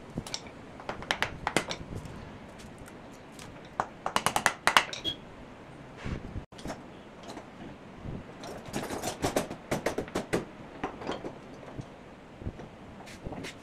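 Scattered sharp knocks and taps of hand tools and wooden chair parts being worked and handled, with a quick run of about six taps a second about four seconds in and another dense patch of knocks near the middle of the second half.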